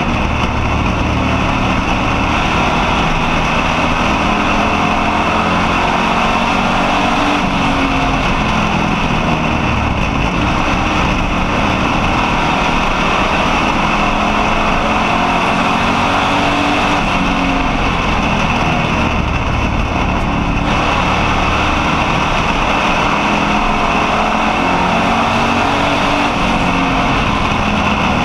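Street stock race car's engine running hard under racing load, heard from inside the car, its pitch rising and falling as it is pushed and eased off.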